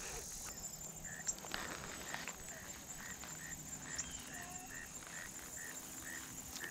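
A frog calling from the bushes: a short high note repeated steadily about three times a second, starting about a second in. Under it, a steady high-pitched insect chorus.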